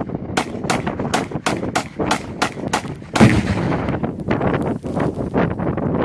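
AR-15 rifle firing quick semi-automatic shots, about three a second, then a water bottle of Tannerite exploding a little past three seconds in. The boom is the loudest sound and trails off into a long low rumble.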